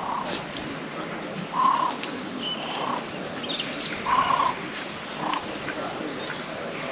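Waterbird calling at a lake: about five short, harsh calls roughly a second apart, two of them louder, with a couple of higher small-bird chirps between them over a steady outdoor hiss.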